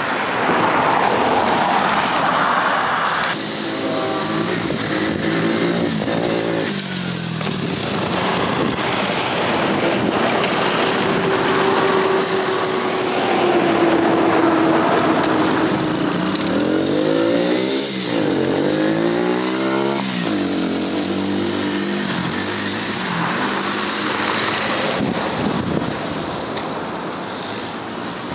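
BMS Typhoon 125cc ATV's single-cylinder engine running as the quad is ridden across grass, its pitch climbing and dropping with the throttle twice and holding fairly steady in between.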